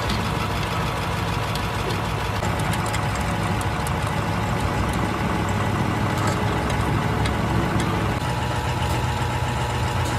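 An engine idling steadily, with scattered light metallic clicks of hand wrenches working the bolts of a truck clutch pressure plate.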